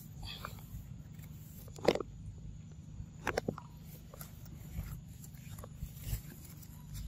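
Scattered clicks and knocks of a baby monkey handling and biting food, over a steady low hum, with the loudest knock about two seconds in.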